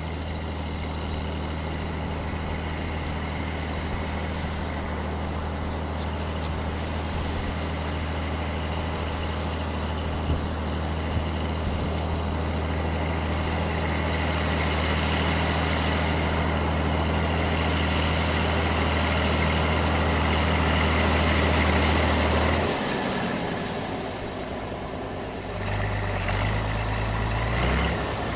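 Diesel farm tractor on cage wheels puddling a flooded rice paddy, its engine running with a steady low drone that grows louder as it approaches. About two-thirds of the way through, the engine note drops away and dips, then comes back at a different pitch near the end.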